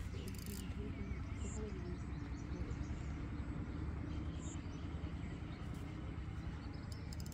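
Faint distant voices over a steady low rumble of outdoor background noise.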